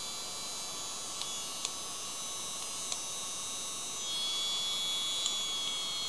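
Small USB-powered handheld mini vacuum cleaner running, its tiny motor and impeller giving a steady high-pitched whine. About four seconds in, a new higher tone joins and it gets slightly louder.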